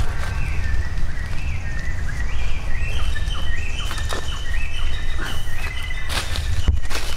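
Small birds chirping in the background, a run of short high notes stepping up and down, with a quick pulsed trill near the end, over a steady low rumble on the microphone.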